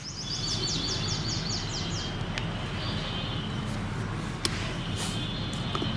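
A small bird calling in a quick run of falling high chirps, about five a second, for the first couple of seconds, over a steady low background hum, with a few faint clicks later.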